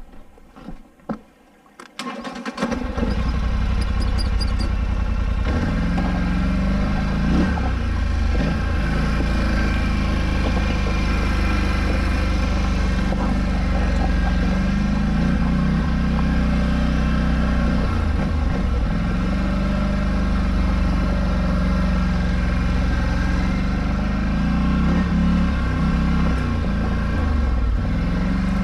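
Polaris Scrambler 1000 ATV engine starting about two and a half seconds in after a few faint clicks, then running as the quad is ridden, the revs rising and falling every few seconds.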